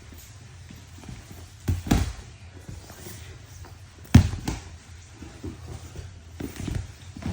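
Bodies and hands thudding on grappling mats during a jiu-jitsu roll: a few heavy thumps, the loudest about four seconds in, with lighter bumps and shuffling between.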